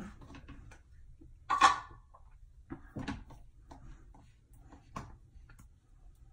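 A few short knocks and scrapes of things being handled, one much louder than the rest about a second and a half in.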